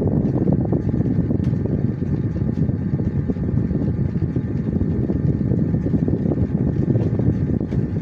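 Steady low rumble with no pauses, with a faint steady hum above it.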